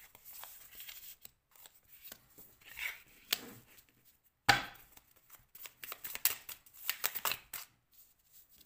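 Oracle cards being handled: cards laid down on the cloth and the deck squared and shuffled in the hands, a scatter of short clicks and flicks with one sharp snap about halfway and a quick run of clicks after it.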